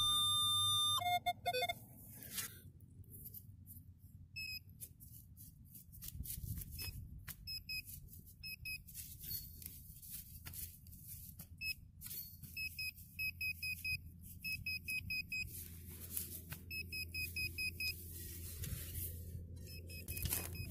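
Metal detector beeping. A steady tone holds for about a second, then a few short lower tones follow, and from about four seconds in come repeated runs of quick high beeps, about five a second, as a target is located. Scraping and clicking of a knife and shovel digging into turf and soil run between the beeps.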